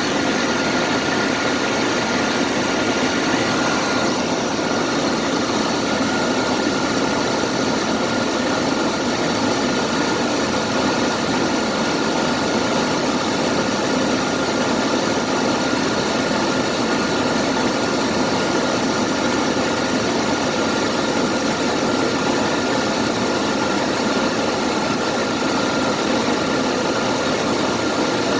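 Vehicle engine idling steadily with a thin, steady high whine running over it, on a vehicle with a failing alternator whose charging voltage keeps dipping.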